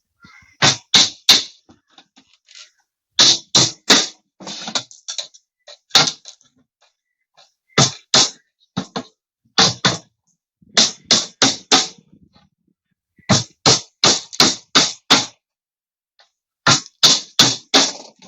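Hammer driving nails into plywood cage panels: quick runs of three to six sharp blows, about three a second, with short pauses between the runs.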